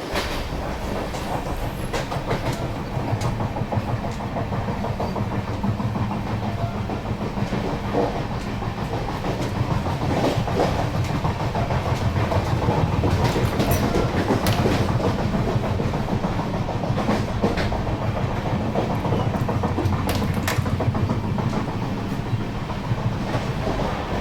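Diesel-electric multiple unit (DEMU) train running steadily, with a low engine and traction drone and the clickety-clack of its wheels over rail joints. The sound grows somewhat louder through the middle.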